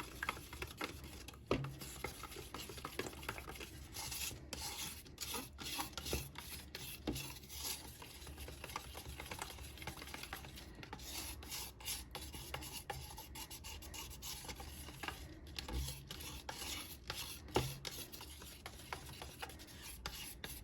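Liquid ResinCrete being stirred in a mixing cup: a steady, faint scraping as the stirrer rubs around the cup, with occasional light taps against the side. It is pigmented resin-and-powder mix being worked until it is smooth and free of lumps.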